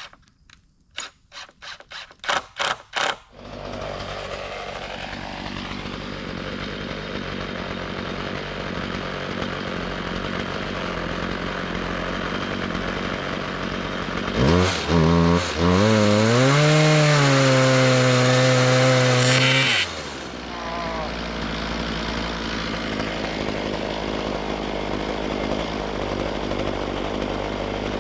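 Chainsaw on a chainsaw mill running steadily while cutting cedar, after a quick run of sharp knocks that speed up over the first three seconds. Past the middle it gets louder with a stronger engine note for about five seconds, then settles back to steady running.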